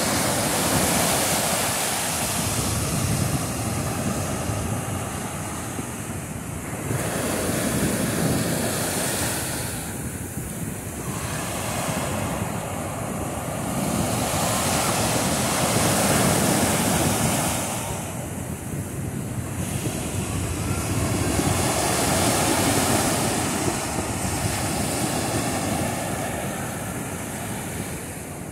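Atlantic surf breaking and washing up a sandy beach. The noise swells and eases as each wave comes in, every three to five seconds, with wind rumbling on the microphone.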